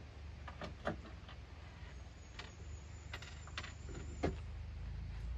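Scattered light clicks and knocks as hands work on the bus's mobile sound-system rack, over a low steady hum that grows louder about four seconds in.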